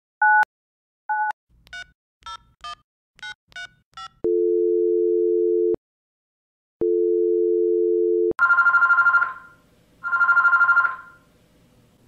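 Telephone sounds: about nine touch-tone keypad beeps dialing a number, then two long steady tones with a gap between them, then an electronic phone ringing in two warbling bursts.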